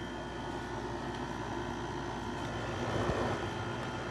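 LG LW6017R 6000 BTU window air conditioner running and cooling: a steady hum of its compressor and fan, with a soft thump about three seconds in.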